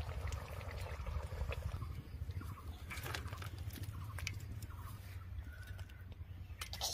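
Soft clinks and scrapes of cookware: a kadai being tipped and a spatula scraping thick fish curry out of it into a steel bowl, a few scattered knocks over a low steady rumble.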